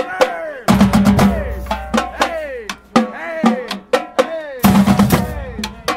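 Marching-band drumline playing: snare, tenor and bass drums struck in quick sharp hits, with the tenor drums ringing and falling in pitch after each stroke. Crash cymbals and bass drums come in heavily twice, about a second in and again near the end.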